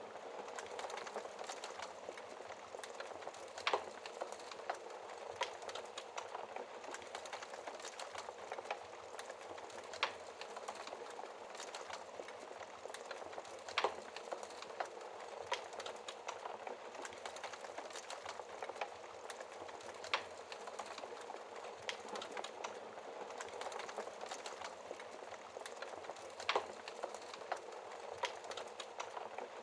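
Wood fire burning with a steady dense crackle, broken every few seconds by louder sharp pops.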